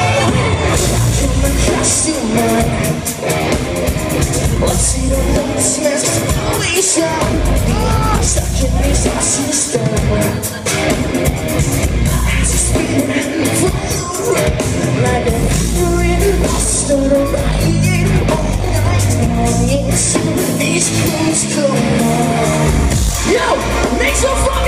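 Live rock band playing loud in a concert hall: a male singer over drums, electric guitar and a heavy bass line.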